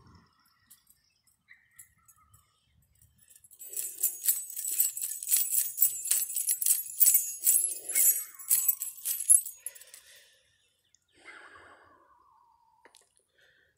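Small metal pieces jingling in a quick, even rhythm, about four shakes a second, for about six seconds. Then comes a short whine that falls in pitch near the end.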